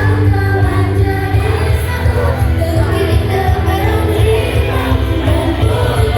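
A live band playing a pop-rock song with a singer, the bass heavy and loud.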